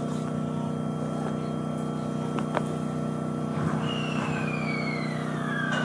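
Ueda Electric Railway electric train standing at the platform, its onboard equipment giving a steady low hum. About four seconds in, a high whine starts and slowly falls in pitch.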